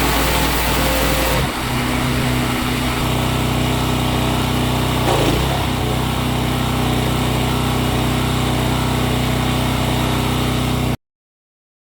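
A motor or engine running steadily with a constant hum, shifting slightly in tone a couple of times early on, then cutting off abruptly near the end.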